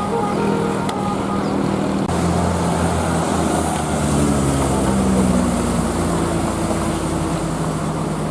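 A bus's multi-tone telolet musical air horn tune dying away in the first second, then a heavy bus engine running, its low drone rising slightly in pitch and easing back.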